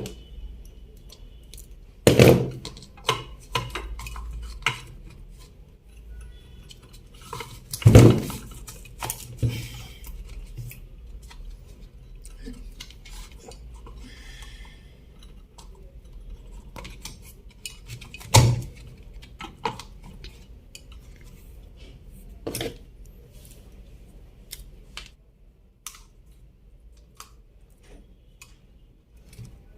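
Metal clinks and knocks of tools and ceiling-fan parts being handled, with a few louder knocks about 2, 8 and 18 seconds in.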